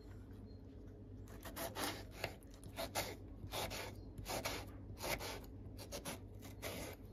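A small paring knife slicing through ripe tomatoes on a wooden cutting board: a quick, irregular run of short cutting strokes that starts about a second in.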